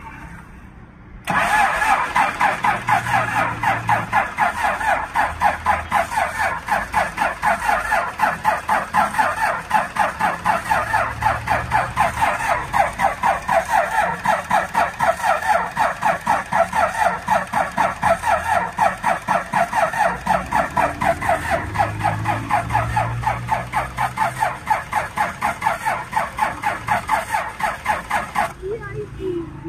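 Cummins 6BT inline-six diesel being cranked on its electric starter motor. The starter runs in a fast, even pulsing beat as each cylinder comes up on compression, cuts in suddenly and is released after nearly half a minute, and the engine never fires. The hard starting is blamed on a faulty feed pump and vacuum that let the injection pump drain of diesel.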